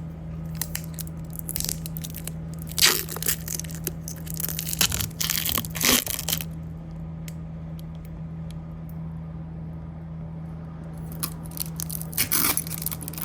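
A jewelry jar being worked open by hand: crackling, tearing and clicking from the lid and its seal, in bursts through the first half and again near the end. A steady low hum runs underneath.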